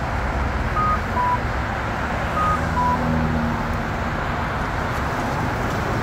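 Accessible pedestrian signal push button giving a short two-note electronic beep, high then low, twice in the first three seconds about a second and a half apart. Steady passing road traffic runs underneath.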